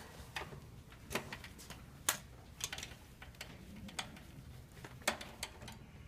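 Screwdriver with a long magnetic extension clicking and tapping against the contactor's mounting screws and the unit's control panel: a string of sharp, irregular clicks, about eight in six seconds.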